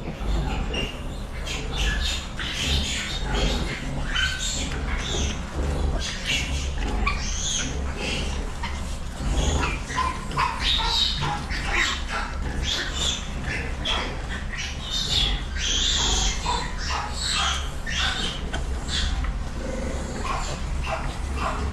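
Piglets squealing and squeaking in many short, overlapping calls as they suckle at a sow, over a steady low hum.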